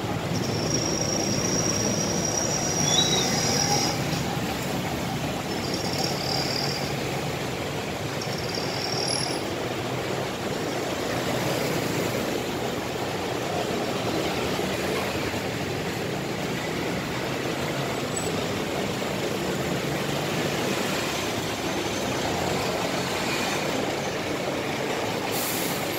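Steady city road traffic: cars, buses and motorbikes passing on a busy street, a constant rumble with no sharp events. A thin high tone sounds three times in the first ten seconds.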